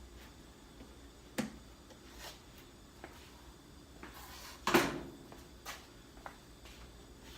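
Scattered clicks and knocks of cold air intake parts and clamps being handled and fitted. A brief rustle leads into the loudest knock just before the five-second mark, with lighter clicks after it.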